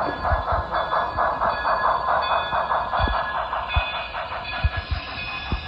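HO scale model train running on a layout, with a rapid, even pulsing of about five beats a second and a few low knocks. The pulsing fades after about four seconds.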